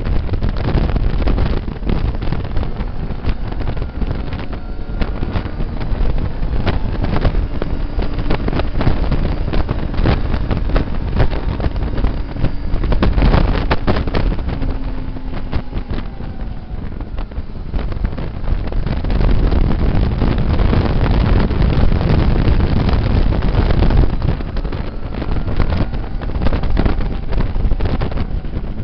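Heavy wind buffeting on a motorcycle's onboard microphone at speed, with the bike's engine faintly audible underneath, its pitch rising and falling as it accelerates and slows, dropping away around the middle.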